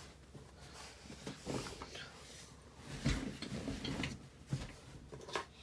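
Small plastic clicks and knocks of an action camera being handled as its memory card is taken out, a handful of short sharp clicks spread over a few seconds.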